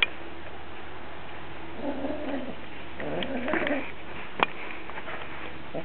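Siamese cat in heat giving two low, wavering calls, about two seconds in and again about three and a half seconds in. Two sharp clicks, one at the start and one a second or so after the second call.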